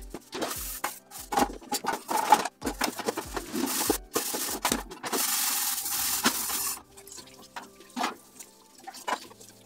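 Dishwashing at a kitchen sink: scrubbing and the clatter of a pot and lid. About five seconds in, the tap runs in a steady stream for nearly two seconds and then shuts off sharply, followed by a few light clinks. Soft background music plays underneath.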